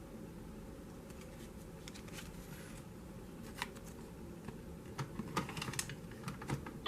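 A scattered series of small, sharp clicks and taps over a faint steady hiss, sparse at first and coming thicker and louder in the last couple of seconds.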